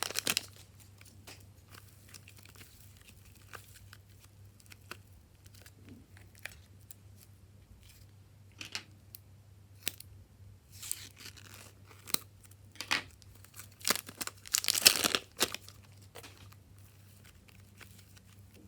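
Slime being squished and stretched by hand, with sticky crackling and popping that comes in bursts, loudest about fifteen seconds in, over a faint steady low hum.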